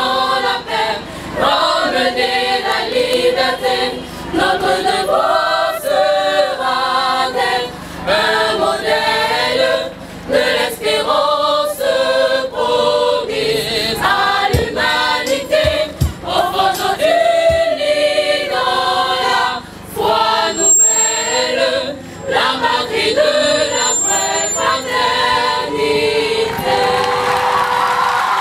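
School choir, mostly girls' voices, singing a song in phrases with short breaks between them.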